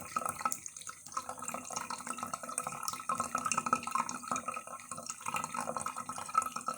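A cat drinking water, a continuous run of quick, wet lapping and splashing sounds.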